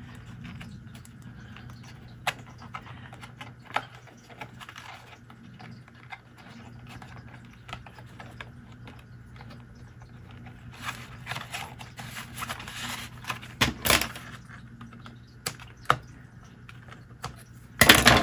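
Close-up handling noise of twine being knotted around a paper button closure on a paper envelope: scattered small clicks and rustles of fingers, twine and paper over a steady low hum. The rustling thickens a few seconds before the end, followed by a louder clatter of handling.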